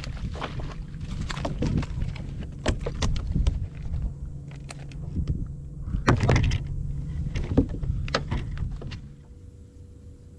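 Repeated knocks, thumps and clicks from handling on a fiberglass bass boat's deck over a low steady hum; the hum drops away and things go quieter about nine seconds in.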